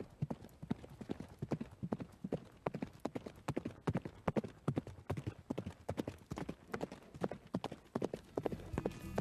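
Boot heels knocking on a wooden stage floor in irregular, hollow steps, a few a second, as the dancers move about in the dark.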